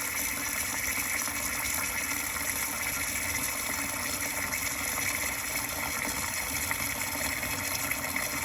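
Kitchen tap running steadily, filling a portable countertop dishwasher hooked up to the sink.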